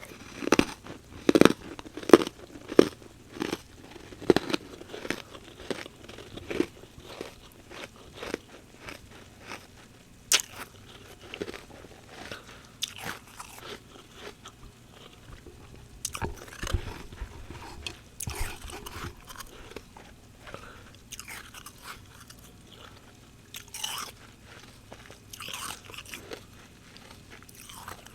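Humidifier frost being bitten and chewed close to the microphone: a run of sharp, crisp crunches, loudest and thickest in the first several seconds, then softer, sparser chewing.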